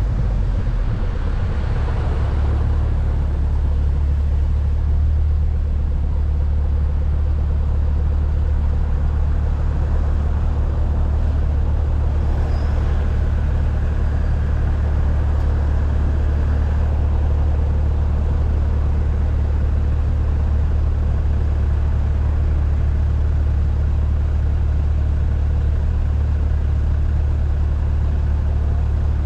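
Volkswagen Golf R (Mk6) driving at a steady pace: its turbocharged four-cylinder and the road give an even low drone, with no revving or turbo flutter.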